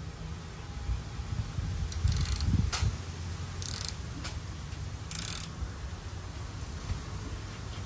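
Ratchet socket wrench clicking in three short bursts as a screw is tightened down.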